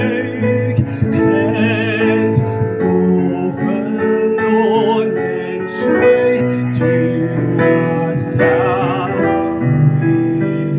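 A song: a solo voice singing held notes with vibrato over piano accompaniment.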